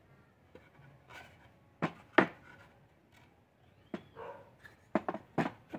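Pine shelf pieces knocking and rubbing together as they are handled and fitted by hand: a few sharp wooden knocks, the loudest about two seconds in, and a quick run of three near the end.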